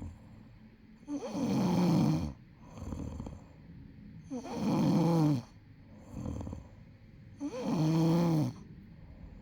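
A person snoring heavily: three loud, drawn-out snores about three seconds apart, each about a second long, with quieter breaths between them.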